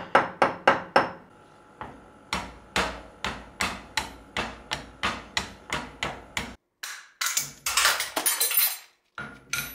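Hammer blows on a brass drift, tapping a bearing outer race into its steel housing. The sharp metallic clinks come about three a second, then a scraping rustle near the end and one last tap.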